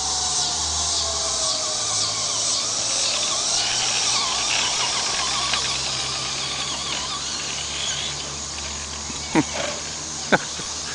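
Traxxas Stampede RC truck's motor and drivetrain whining as it drives over grass, the pitch falling and rising with the throttle. Two short sharp sounds near the end.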